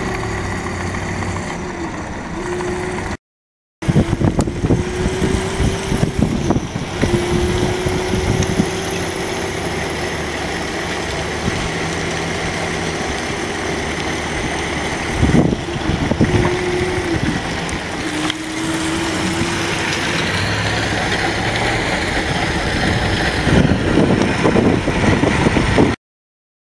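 A 36-volt electric mini pocket bike's motor whining as it rides, the whine climbing slowly in pitch again and again as it gathers speed, over steady road and wind noise. The sound drops out briefly about three seconds in and cuts off near the end.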